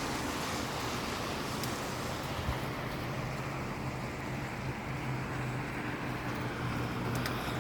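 Steady rain falling, with a low steady hum of road traffic underneath and a few faint ticks.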